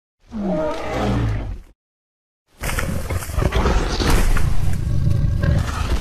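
Two Tyrannosaurus rex roar sound effects, with dead silence between them. The first is short, about a second and a half, and drops in pitch. The second starts about two and a half seconds in and is a longer, rougher, slightly louder roar lasting about three and a half seconds.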